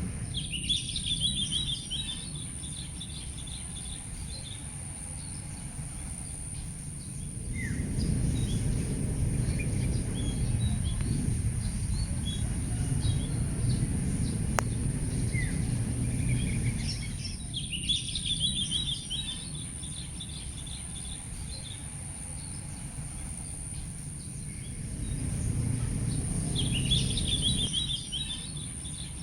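Small birds chattering in short bursts three times, over a steady high-pitched whine and a low rumble that swells and fades twice.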